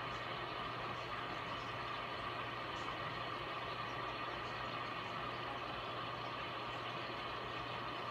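Steady hum of running aquarium equipment, a constant low drone with an even hiss over it that does not change.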